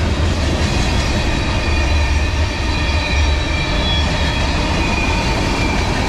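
Freight cars of a passing CSX manifest train rolling by: a steady low rumble of steel wheels on the rails, with faint high tones ringing over it.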